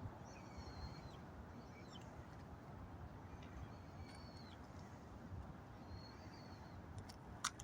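Faint bird calls, short high notes that hold and then bend in pitch, repeating several times over a low, steady background hum. One sharp click comes near the end.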